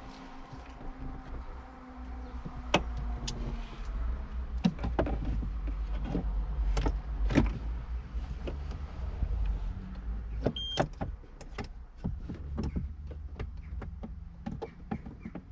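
Hand tools being handled: a Torx bit or socket being swapped and fitted, giving scattered, irregular metal clicks and knocks over a steady low rumble.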